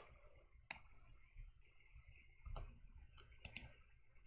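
Near silence broken by about five faint, scattered clicks from computer input: a mouse and keyboard being used.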